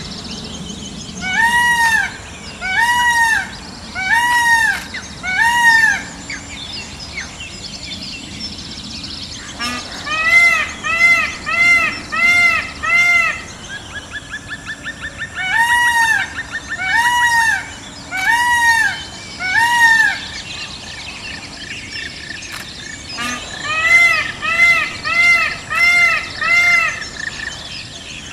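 Geese honking in runs of four or five arched calls, the runs a few seconds apart, with a quick rattling chatter about halfway through.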